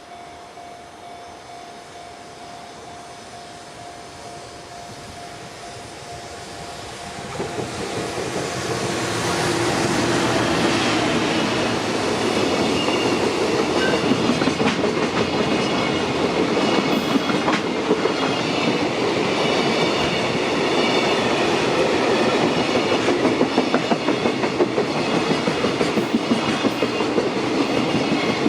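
Freight train approaching and passing close by: the sound builds from about seven seconds in to a loud, steady rumble. The wagons' wheels then clatter over the rail joints in a regular rhythm.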